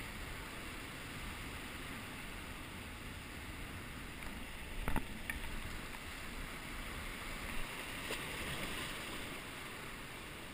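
Sea surf washing and breaking around coastal rocks in a steady rush, with wind on the microphone. A few sharp clicks cut in about halfway through.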